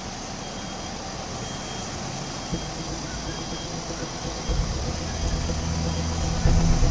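Street traffic noise with a fire engine's diesel idling. The engine grows louder about two-thirds of the way in, its low steady drone becoming the loudest sound. A faint high beep repeats in the first couple of seconds.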